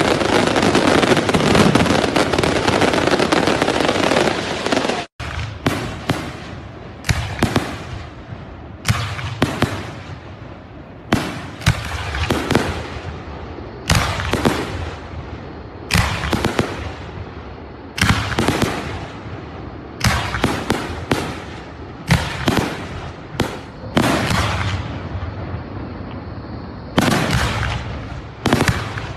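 Fireworks: a dense, continuous barrage of aerial bursts for about five seconds, then separate aerial shell bursts about every two seconds, each a sharp bang with a fading tail.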